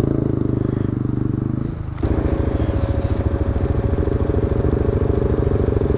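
ATV engine running: a steady engine note that changes abruptly about two seconds in to a louder, evenly pulsing idle close to the microphone.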